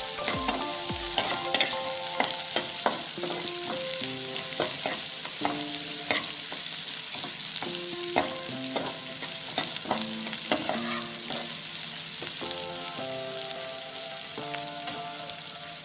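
Chopped onions, green chillies and peanuts sizzling in hot oil in a nonstick pan, with a steady hiss. A metal spatula stirs them, scraping and clicking against the pan, and the clicks grow fewer toward the end.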